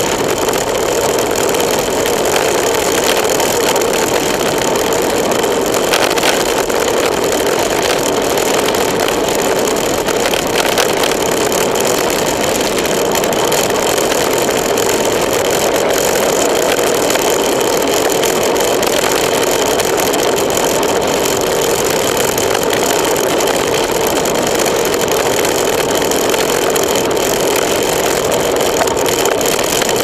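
Steady wind rush on a bicycle-mounted camera's microphone as a road bike descends at speed, unbroken throughout.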